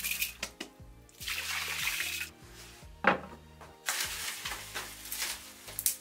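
Wet, freshly washed rice grains poured from a wooden bowl into a black wok: two rushing pours of about a second each, with a sharp knock between them, over soft background music.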